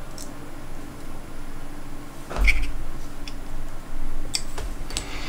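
Handling noise of fingers and a small hex screwdriver working on a tiny Nebula Pro FPV camera: a few scattered small clicks, with a soft thump a little over two seconds in.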